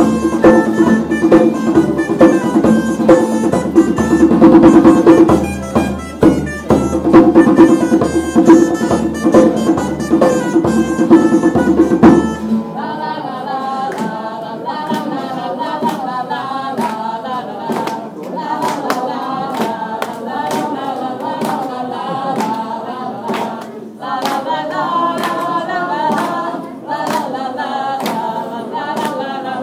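A live band plays loud music with drums over a held low note. About twelve seconds in, it breaks off abruptly into quieter group singing over an even beat.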